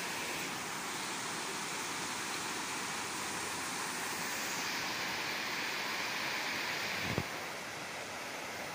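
A river of rushing water running over rocks: a steady hiss that holds throughout. A single low thump about seven seconds in.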